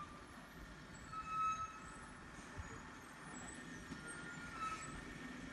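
Tata SE 1613 timber lorry's diesel engine running faintly as the loaded truck comes down a dirt slope, with a short high-pitched squeal about a second in and a few fainter ones later.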